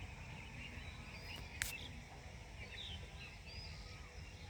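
Faint, short bird chirps scattered over a steady low background rumble, with one sharp click about a third of the way in.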